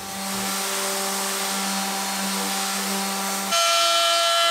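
Random orbital sander running steadily against a wooden box, a low hum with a hiss. About three and a half seconds in it cuts off suddenly to a louder DeWalt compact router running, a steady high whine as it routes the wood.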